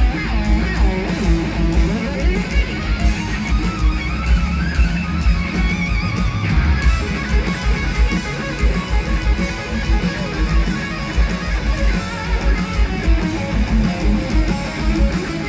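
Live rock band playing loudly at a stadium concert, with strummed electric guitars, bass and drums keeping a steady beat.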